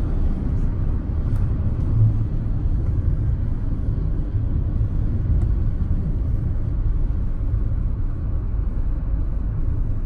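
Steady low road rumble inside a moving car's cabin: tyre and engine noise at driving speed.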